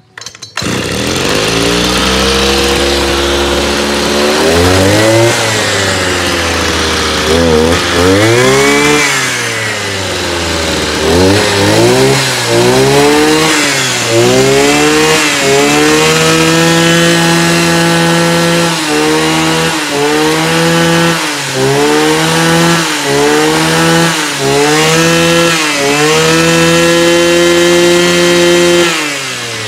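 Echo SRC360T 36cc two-stroke brush cutter engine catching right at the start, idling briefly, then revved up and down repeatedly with the throttle, held at high revs twice for a few seconds and dropping back to idle near the end. The seller judges it very strong.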